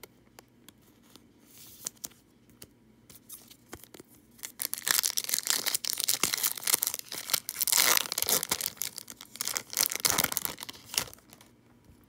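A 2018 Topps Gallery baseball card pack's foil-lined wrapper being torn open and crinkled by hand, a loud crackling tear starting about five seconds in and lasting about six seconds, after light handling clicks.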